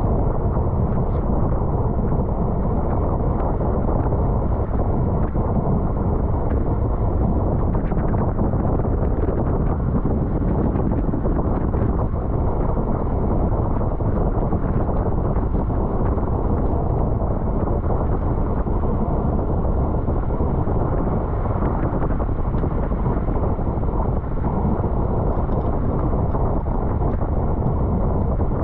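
Steady rush of wind buffeting a camera microphone on a road bike ridden at race speed.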